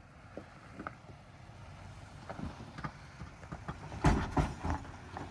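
A Lexus GX 470 crawling down a rock ledge: scattered knocks and crunches of tyres and underbody on rock, with the loudest cluster of thumps about four seconds in.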